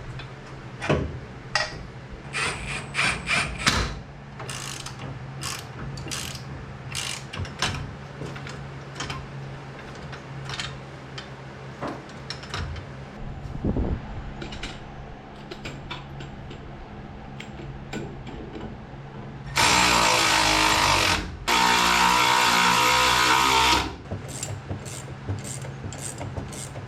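Mechanic's tools working on steel suspension parts: a string of clicks and clanks of hand tools, then a power tool runs in two loud bursts of about two seconds each near the end, driving in the suspension bolts.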